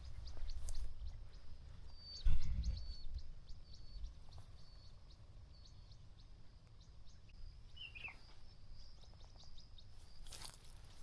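Outdoor bush ambience with a bird calling a steady series of short high notes, then a short falling call about eight seconds in. A low thump about two seconds in, and crackling rustle near the end.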